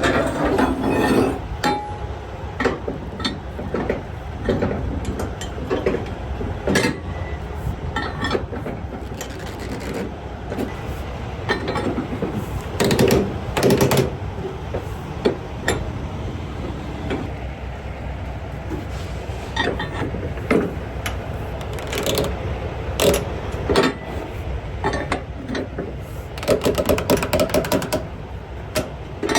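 Metal clanks and knocks of flatbed cargo straps and winches being worked, over a steady low engine rumble, with a quick run of rapid clicks near the end.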